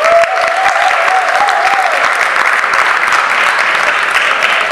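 Audience applauding, many hands clapping steadily. Over the first two seconds a single voice holds one long call above the clapping.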